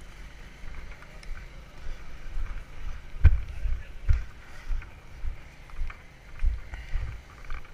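Footsteps through tall, wet grass picked up by a body-worn camera's microphone: dull low thuds about every half to one second over a rustling, rumbling noise, the loudest thud about three seconds in.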